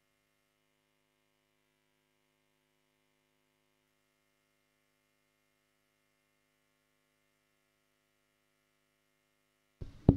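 Faint, steady electrical mains hum on the sound system, then a sharp microphone knock near the end.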